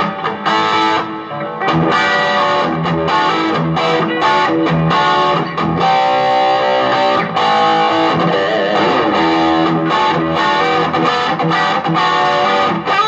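Electric guitar played through a 15-watt Marshall MG15 combo amp with an 8-inch Celestion Super 8 speaker: a riff of chords in a choppy rhythm with short stops between them.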